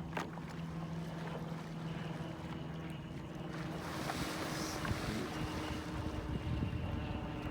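A distant motor engine droning steadily under wind and lapping water, with a brief rush of splashing noise about four seconds in.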